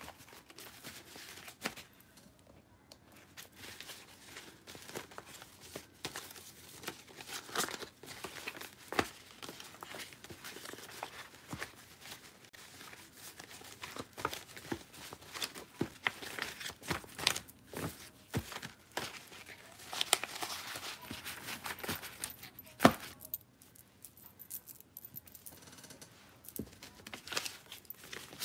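Small hand-written paper slips being shuffled and handled by hand: irregular rustling and flicking of paper, thinning out near the end.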